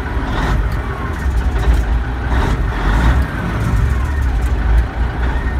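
Peterbilt 359's mechanical diesel engine idling steadily while it warms up, heard from inside the cab, with a few light clicks over the rumble.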